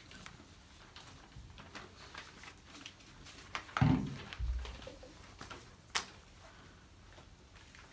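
Quiet room with sheets of paper being handled and small scattered clicks, a dull thump about four seconds in and a sharp click about two seconds later.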